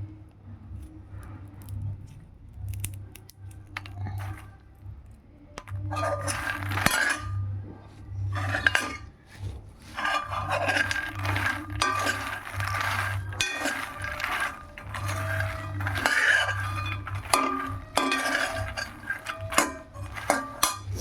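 A utensil clinking, clattering and scraping in a pan, most likely stirring dry fox nuts (makhana) as they roast, over a steady low hum. The clatter is sparse at first and becomes dense and continuous about six seconds in.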